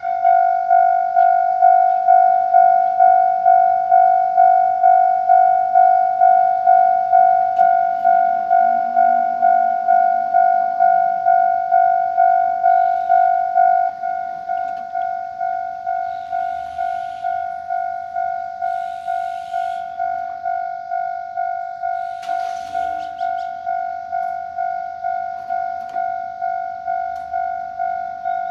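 Japanese level crossing's electronic warning bell of the Tokai type, ringing in a steady repeating tone at about three strokes every two seconds. About halfway through it drops in volume and keeps ringing.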